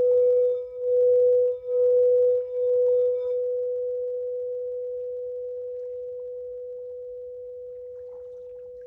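Singing bowl ringing with a pure, steady tone that swells and dips about once a second for the first three seconds or so. It then rings on evenly, slowly fading away.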